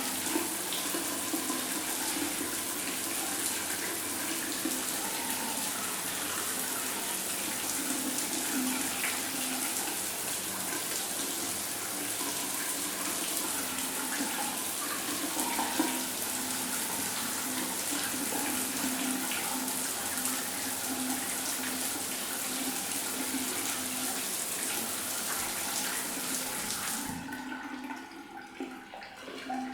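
Shower running: a steady spray of water, cut off suddenly near the end, leaving quieter drips and trickling.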